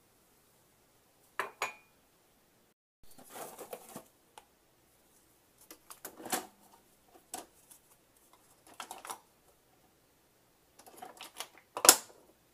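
A mug and the parts of a coffee maker being handled: scattered clicks, knocks and clatters with a brief rustle, the sharpest click near the end.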